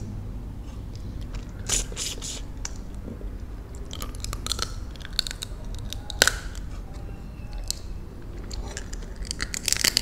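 Cooked crab being pulled apart and eaten, heard as crab shell cracking and crunching along with wet chewing of the meat, in scattered clicks and crackles. The sharpest crack comes about six seconds in, and there is a dense run of crackles near the end.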